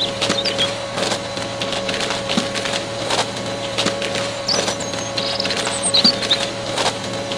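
Small electric toy motor whining steadily as a cone-shaped spiral drill bit spins and bores into sand, with irregular crunching clicks from the sand and grit.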